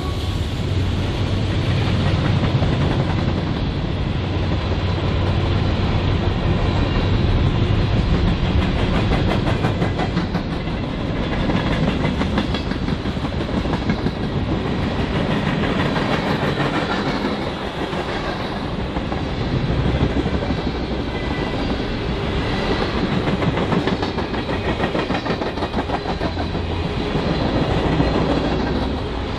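Freight train cars rolling past, their steel wheels clicking and rumbling steadily over the rails.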